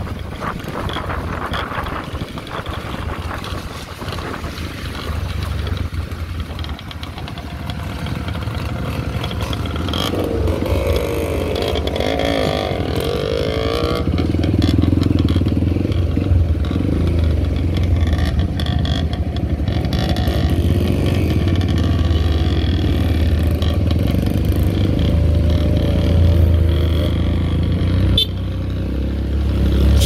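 Motorcycle engines running as a group of bikes rides together, with several engine notes rising and falling a third of the way in. The engines get louder from about halfway.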